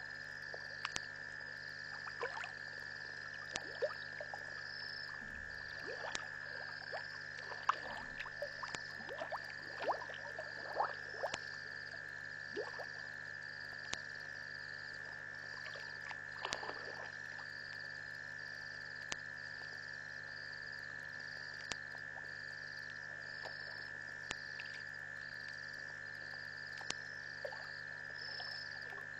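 Night chorus of frogs and insects: a steady high trill with a regularly pulsing chirp above it. Scattered short clicks and calls come thickest in the first half.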